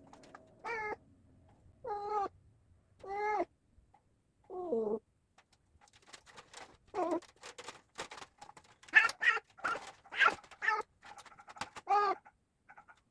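A cat meowing over and over, short calls about a second apart, some falling in pitch. A run of sharp clicks and rattles joins in over the second half.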